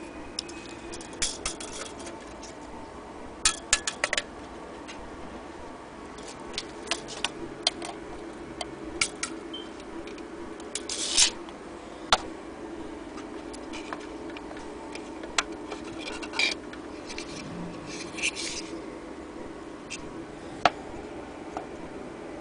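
Irregular light clicks and knocks from a vintage Hornby tinplate clockwork speedboat being handled, over a steady low background hum.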